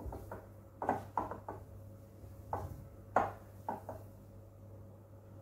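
Hands kneading crumbly rice dough in a glass bowl, the fingers knocking and tapping against the glass now and then, about half a dozen times, over a low steady hum.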